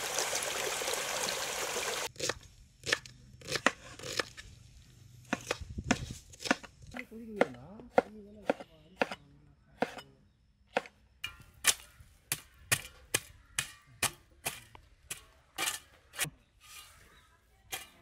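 A series of short, sharp knocks, irregular at first and coming closer together in the second half, after a loud burst of noise in the first two seconds.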